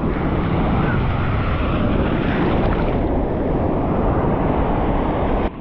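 Rushing sea water and wind buffeting a surf action camera's microphone: a steady, loud noise that cuts off suddenly near the end.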